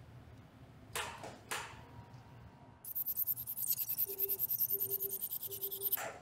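Tenex ultrasonic microtip system switched on to begin treatment, giving a rapid pulsing high-pitched hiss about three seconds in. Three short low beeps sound during it. Two soft clicks come before it starts.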